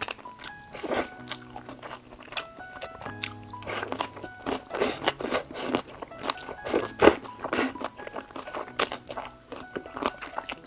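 Irregular crunching bites and chewing of food, loudest between about four and nine seconds in, over soft background music of held notes.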